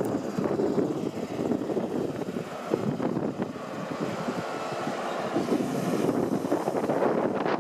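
Diesel engine of a GWR class 43 High Speed Train power car running with a steady rumble as the train moves slowly along the platform.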